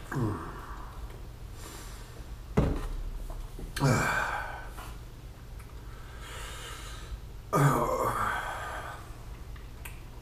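A man gasping, groaning and breathing hard in several loud breathy bursts, each falling in pitch, from the burning heat of a raw Trinidad scorpion pepper he has just eaten.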